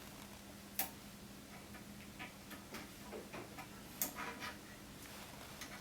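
A few sharp clicks and light ticks as the stop collar is slid along the drill bit and set for depth, the clearest about a second in and again about four seconds in, over a faint steady hum.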